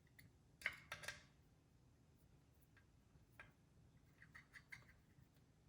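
Faint clicks and ticks of a hand screwdriver turning screws: a few sharper clicks about a second in, one more near the middle, and a quick run of small ticks near the end.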